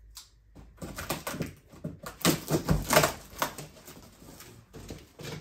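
Irregular rustling, scuffing and light knocks of a large cardboard shipping box being handled, densest in the middle.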